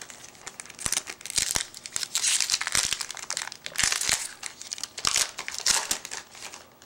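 Foil wrapper of a 2010 Bowman Chrome baseball card pack crinkling and tearing as it is worked open by hand. It makes a run of sharp crackles that stops shortly before the end.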